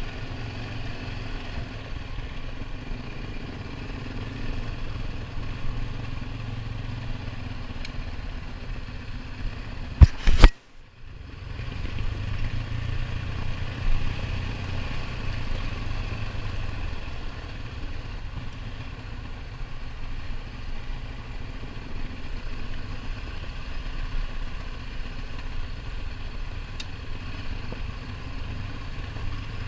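ATV engine running steadily while riding on a dirt trail. About ten seconds in there is a sharp, very loud knock, and the sound drops out for about half a second before the engine comes back.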